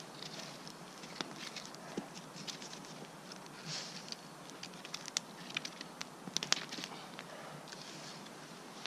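Dry sticks and twigs clicking and snapping irregularly over a soft rustling background, with a few sharper snaps past the middle.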